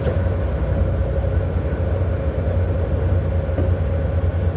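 Patrol vessel's engines running steadily alongside the quay: a deep, even rumble with a thin steady tone above it.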